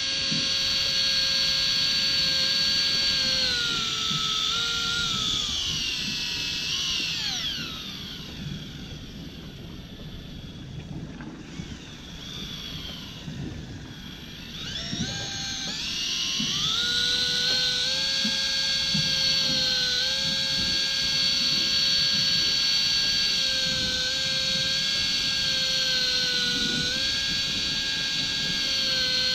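Electric fishing reel's motor whining as it winds in line. About a quarter of the way in its pitch sinks and it stops; about halfway it starts again, rises back up and runs steadily with small dips in pitch.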